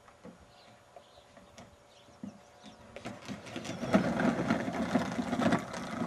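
Plastic toy roller coaster car rolling down its plastic track and out onto the grass: a clattering rumble of wheels with many small knocks, starting about three seconds in, loudest as the car leaves the track, and easing off near the end.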